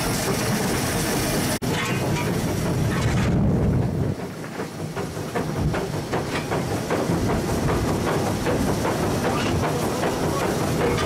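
Southern Railway S15 class 4-6-0 steam locomotive No. 847 running, heard from its footplate: a steady clatter and rumble of the engine and wheels, with steam hiss. About four seconds in the low rumble drops and quick clicks of the wheels over the rail joints come to the fore.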